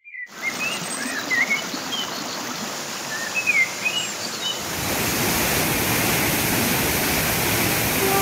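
Stream water rushing over rocks, with birds chirping over it for the first half. About halfway through, the rush of water grows louder and fuller.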